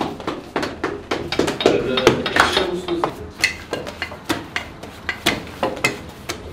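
Irregular sharp knocks and clatter of hand bakery work, several a second, as lavash dough is slapped and worked on a floured table.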